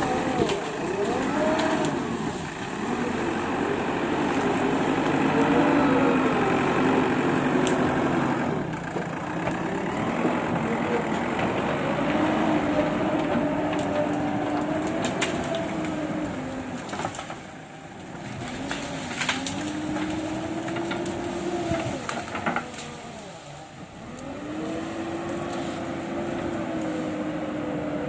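Hydraulic excavator's diesel engine running, its pitch rising and falling as it revs under load. Sharp knocks and clatter come now and then, most of them in the middle stretch, as broken brick rubble is moved.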